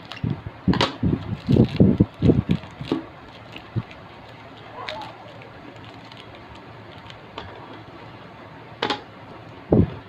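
Hands working at a tightly packed box of opal glass dinnerware: a run of short dull knocks and a few sharper clicks, then a quieter stretch with a single sharp click near the end.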